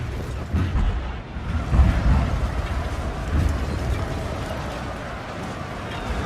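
Mixed medieval siege-battle sound effect: a dense low rumble with heavy booms swelling about half a second, two seconds and three and a half seconds in.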